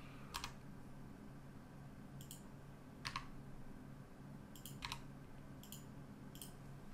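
Computer keyboard keys and mouse buttons clicking: about seven short, sharp clicks scattered irregularly over several seconds, as Blender shortcut keys are pressed, over a faint steady low hum.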